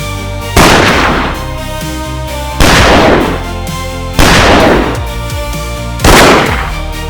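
Four single gunshots, each a sharp crack with a reverberating tail that dies away over about a second, spaced roughly one and a half to two seconds apart, over electronic background music.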